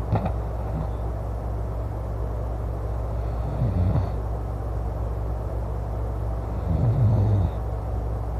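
A man snoring loudly: two long snores about three and a half seconds apart, over a steady low rumble.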